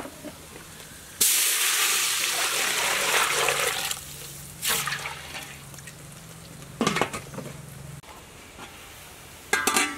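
Water poured from a metal bowl into a large metal cooking pot, a steady splashing for about three seconds, followed by a single short knock.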